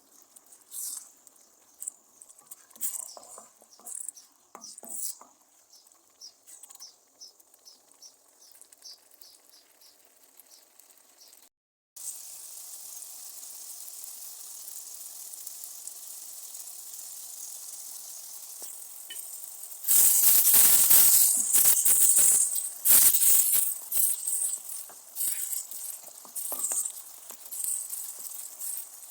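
Grated tomatoes, onions and garlic sizzling in oil in a frying pan while a utensil stirs and scrapes the pan. The first part is faint scattered scraping. After a brief cut about twelve seconds in, a steady sizzle runs, and loud stirring scrapes start about twenty seconds in.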